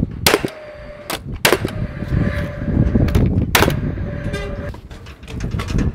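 Paslode XP cordless framing nailer firing four nails, sharp combustion cracks from its fuel-cell-and-battery piston, with the tool's fan whirring briefly after the first and last shots. Wind rumbles on the microphone throughout.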